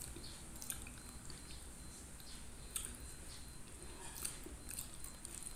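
Close-up chewing of soft fish and rice, with scattered short, wet mouth smacks and clicks a few times over the seconds.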